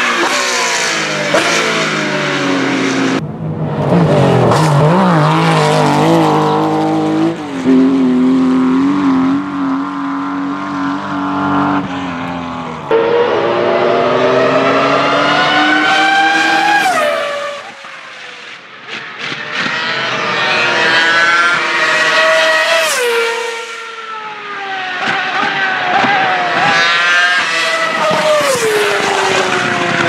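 Race-car engines heard in three separate clips. First a Porsche 911 GT3 Cup car drives past at speed. Then a lower, wavering engine note runs for about ten seconds. Then a Ferrari Formula 1 car runs at high revs, its pitch climbing in steps through the gears and dropping sharply as it goes past, and it steps down in pitch near the end.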